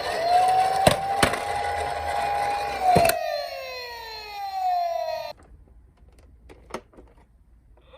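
A toy emergency vehicle's electronic siren holds a steady wail, then winds down in pitch from about three seconds in and cuts off suddenly about halfway through. A few sharp clicks come before the wind-down, and faint clicks follow in the quiet.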